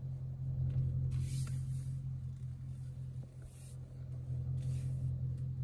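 Dodge Charger SRT's V8 idling, heard from inside the cabin as the car is reversed slowly into a parking space. A steady low engine hum runs throughout, with a few short bursts of hiss over it.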